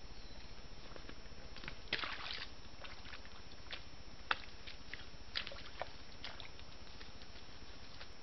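Red deer moving in a muddy wallow: scattered short splashes and clicks of hooves in mud and leaves, busiest about two seconds in, over the steady hiss of a trail camera's microphone.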